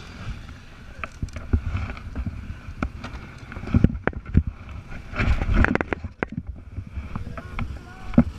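Off-road vehicle moving over a rough trail: a low rumble broken by irregular knocks and rattles, with louder jolts about four seconds in and again a second later, and wind on the microphone.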